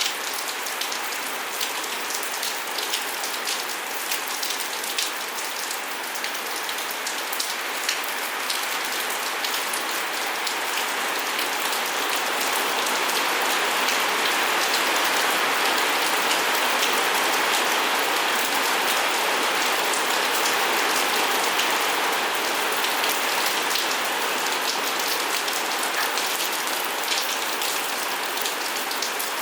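Steady rain falling, with the patter of individual drops. The rain grows heavier for a stretch in the middle, then eases again.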